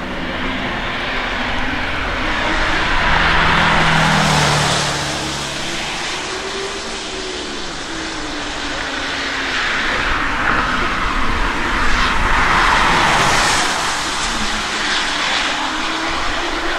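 Two hypercars accelerating hard past one after the other on a wet track, each engine rising and falling in pitch with a loud hiss of tyre spray off the soaked road. The first car is loudest about three to four seconds in, the second around twelve to thirteen seconds in.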